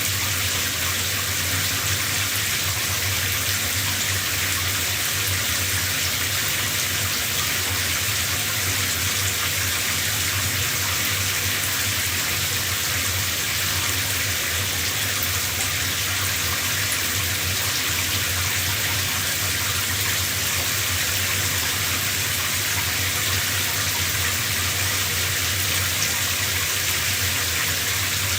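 Shower running: a steady spray of water hissing evenly, with a low rumble underneath.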